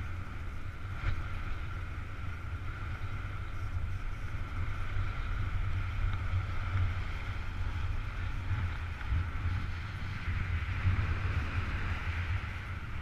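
Wind rushing over the microphone of a camera worn by a paraglider pilot in flight: a steady low buffeting rumble with a hiss above it.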